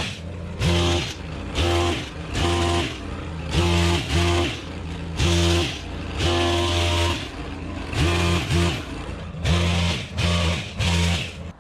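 Stihl KM 130R Kombi engine driving an HT-KM pole-saw chain, throttled up in about a dozen short bursts, each half a second to a second long, and dropping back to idle between them as it cuts spruce branches.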